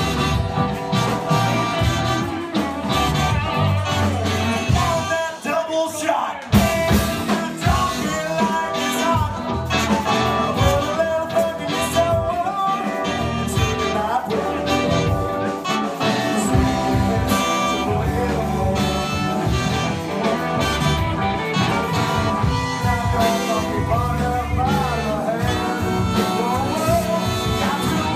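A live band playing with a lead vocal, a brass horn section of trumpet and trombone, and guitar. The music thins briefly about five to six seconds in and comes back in with a loud hit.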